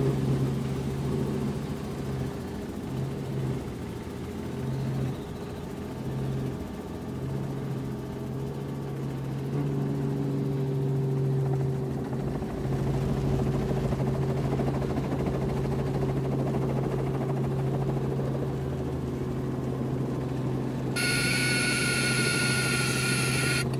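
A light helicopter's engine and rotor running steadily, heard from inside the cabin as it comes down to land, as a constant low hum. Near the end a high-pitched tone starts suddenly and cuts off about three seconds later.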